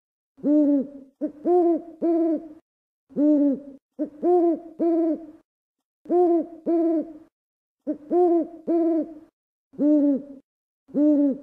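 Barred owl hooting in short phrases of two to four hoots, each hoot rising and falling in pitch, the phrases repeating every few seconds: the 'who cooks for you' call.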